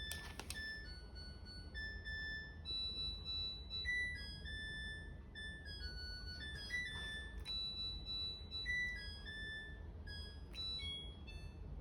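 Clothes dryer's end-of-cycle alarm playing its melody: a long tune of single electronic beeper notes stepping up and down, over a low steady hum.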